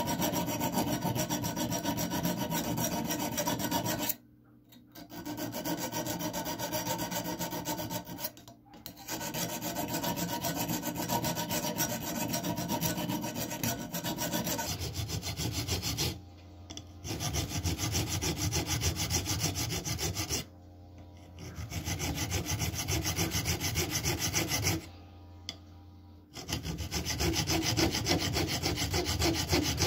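Hand files rasping in rapid back-and-forth strokes on the rusted steel of a can opener clamped in a vise, taking off rust. The filing stops briefly several times and changes character about halfway through.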